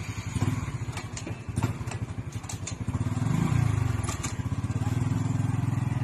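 Small underbone motorcycle engine running as the bike rolls slowly past, getting louder about halfway through, with a few sharp clicks early on.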